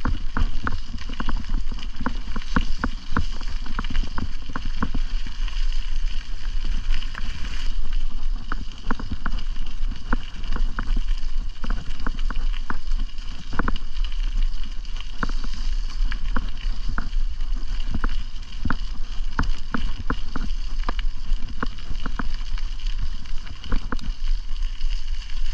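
Bicycle ride on a paved trail: wind rumbling on the microphone over the tyre and drivetrain noise, with many irregular clicks and rattles from the bike.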